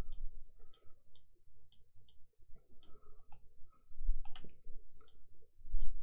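Computer mouse clicking repeatedly at an uneven pace, with a couple of low thumps.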